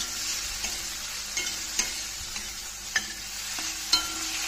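Onion-tomato masala sizzling in a stainless steel kadai over a gas flame, stirred with a steel spatula that clinks and scrapes against the pan a few times. The loudest clink comes near the end.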